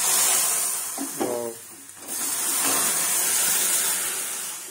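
Hot tempering of coconut oil and mustard seeds in an iron ladle dipped into the tree sorrel stew, sizzling loudly. The sizzle fades, then starts again about two seconds in as more stew meets the hot ladle.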